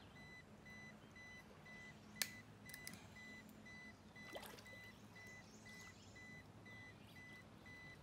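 Near silence with a faint, evenly repeating high electronic beep, and a single sharp click about two seconds in.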